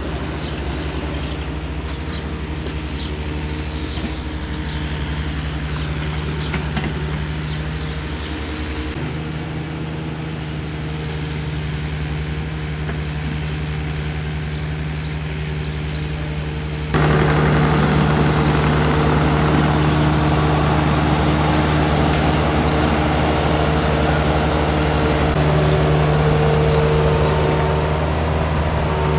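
Hitachi mini excavator's diesel engine running steadily under load, getting louder about two-thirds of the way through.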